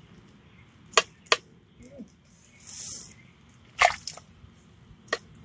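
A few separate sharp clicks and knocks of a small knife against a wooden cutting board as meat is cut up, with a short hiss about halfway through.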